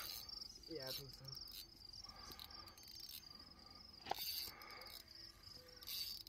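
Crickets chirping faintly in short, evenly repeated high trills, with a single sharp click about four seconds in.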